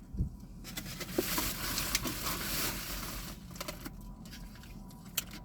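Close-up mukbang eating and food-handling noises: a soft knock near the start, then a few seconds of rustling.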